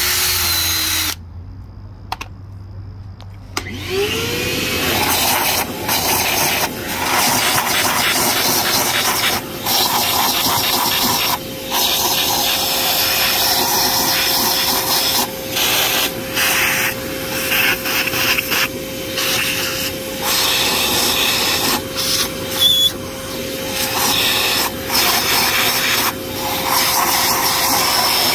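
A rotary power tool scrubbing a cylinder head with an abrasive pad or wire wheel. It stops about a second in and spins back up near four seconds to a steady whine. The scrubbing keeps breaking off for moments while the motor runs on.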